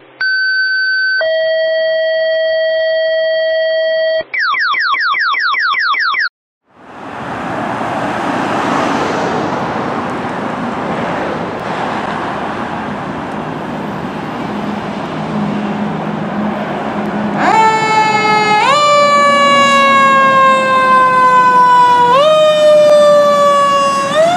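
A short intro jingle of steady electronic tones and fast rising sweeps, cut off by a moment of silence, then street traffic noise. Later an approaching fire truck's siren sounds loudly, its pitch jumping up and then sliding slowly down, over and over.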